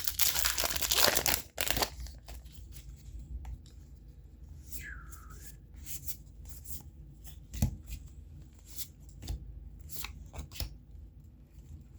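A trading-card booster pack wrapper being torn open during the first second and a half, followed by the cards being handled and flipped through: a string of light ticks and snaps.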